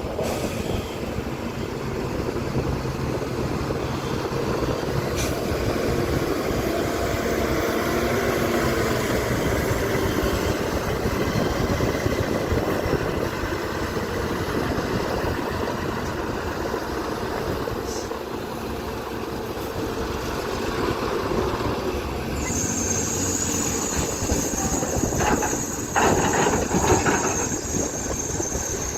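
Excavator's diesel engine and hydraulics running steadily under load. A high, steady squeal joins in about two-thirds of the way through, and a few knocks come near the end.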